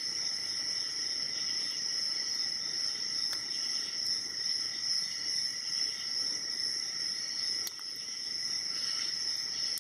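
A hook pick working the pins inside an aluminium padlock while a tension wrench holds the plug, giving a few faint clicks, about three and a half seconds in and again near the end. Over it runs a steady high-pitched whine with a trilling edge, like insects chirring.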